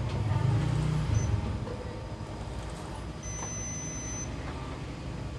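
Ricoh MP 6054 copier: a low mechanical rumble that dies down about a second and a half in, with short high beeps from the touch-panel control as it is operated, one about a second in and a longer, steady beep lasting about a second near three seconds in.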